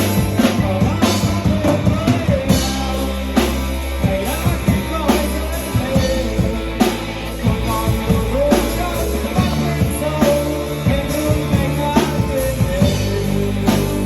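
Rock music driven by a drum kit, with steady regular drum hits under held bass and instrument notes.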